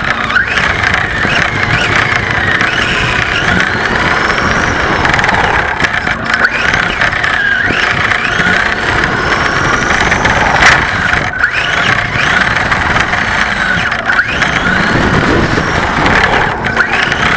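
Remote-control car's motor whining up and fading back down again and again over a steady scrubbing hiss, as the car does power slides.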